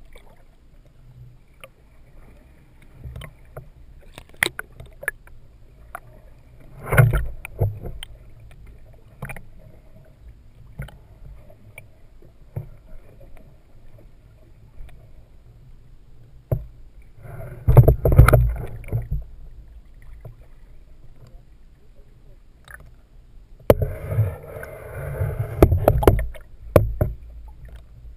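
Muffled water sounds picked up by a camera held underwater: sloshing and scattered small knocks and clicks, with three louder bursts of splashing, about a quarter of the way in, just past the middle and near the end.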